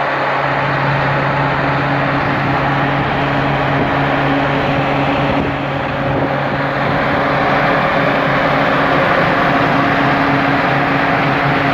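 Ingersoll Rand air compressor running steadily with a constant low-pitched hum, dipping slightly about six seconds in.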